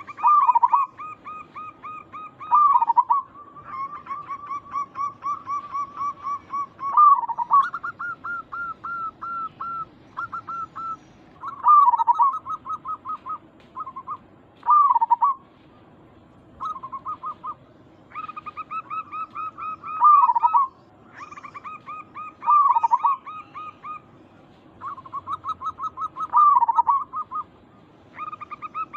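Zebra doves (perkutut) calling: quick runs of short clipped notes, about five a second, broken every few seconds by a louder, rolling coo.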